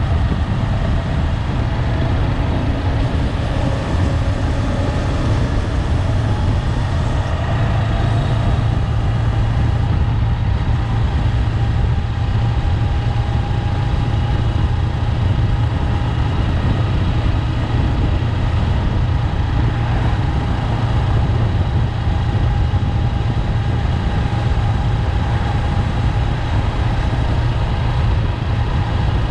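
Honda 400X motorcycle's parallel-twin engine running steadily while riding, heard as a constant low rumble with a faint engine pitch that drifts slightly.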